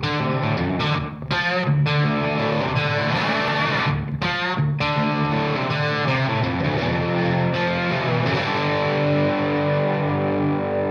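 Background rock music led by distorted electric guitar playing chords.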